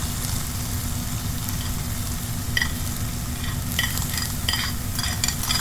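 Tuna filling sizzling as it is stirred in a frying pan, with a utensil scraping the pan in short strokes, several in the second half.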